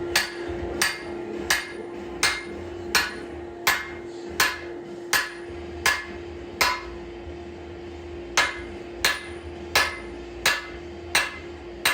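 Metal ringing under evenly paced hammer blows, about three strikes every two seconds, with one longer pause partway through, over a steady hum.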